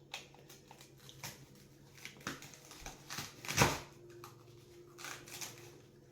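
Kitchen knife chopping food on a cutting board: a few slow, uneven chops, the loudest about three and a half seconds in.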